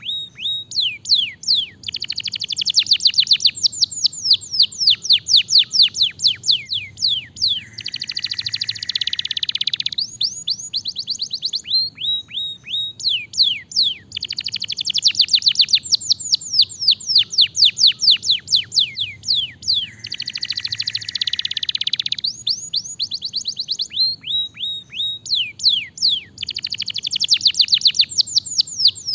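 Domestic canary singing a long, fast song: quick runs of rapidly repeated falling notes, broken twice by a denser buzzy roll. The same song phrase comes round about every twelve seconds.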